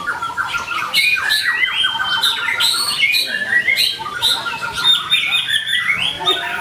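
White-rumped shama (murai batu) singing a fast, nonstop run of varied chirps, short whistles and rapid trills, changing phrase every second or so.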